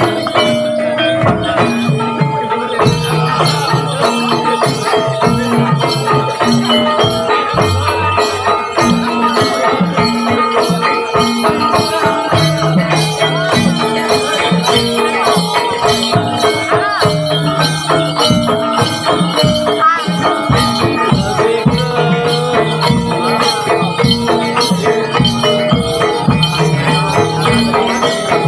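Live kuda lumping accompaniment of Javanese drums and tuned metal percussion, with a rattling, jingling percussion over a steady, unbroken beat.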